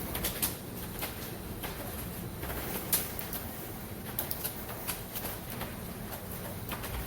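Rain falling on a rooftop: a steady hiss with irregular drops tapping on the roof, one sharper tap about three seconds in.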